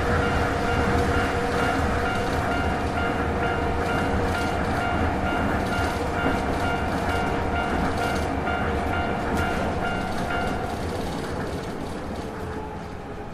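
Train running over the rails with a low rumble while a level-crossing bell rings in a steady repeating pattern. The bell stops about three-quarters of the way through and the train sound fades away.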